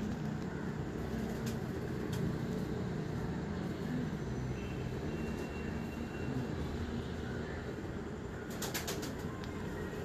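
Domestic pigeons cooing steadily, with a few sharp clicks near the end.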